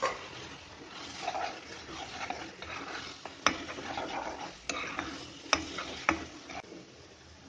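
A spatula stirring grated papaya halwa as it bubbles in ghee and sugar syrup in a non-stick kadai, with a soft sizzle throughout. About five sharp clicks come as the spatula knocks the pan, mostly in the second half.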